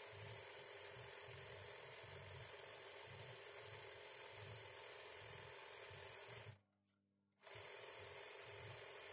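Sewing machine running steadily as free-hand embroidery is stitched through fabric held in a hoop, with a low throb repeating about every two-thirds of a second. The sound cuts out for about a second near the end.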